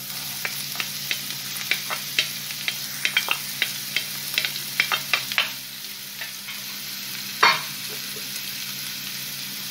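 Chopped onion tipped off a plate into hot oil in a non-stick frying pan, frying with a steady sizzle. Many small clicks and scrapes as the pieces fall in during the first five seconds or so, and one sharper knock about seven and a half seconds in.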